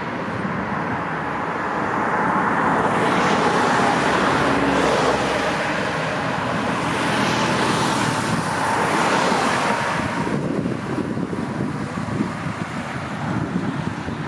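Jet airliner engines running as the plane passes on its landing approach: a steady rushing noise with a faint whine. The higher hiss falls away about ten seconds in.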